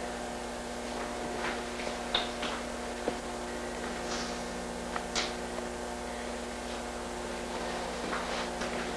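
Steady electrical hum over room tone, with a few faint short sounds scattered through.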